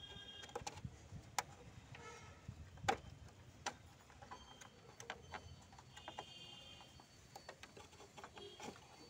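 Irregular faint clicks and small knocks as plastic wire connectors and ribbon cables are worked loose and unplugged from an inkjet printer's logic board.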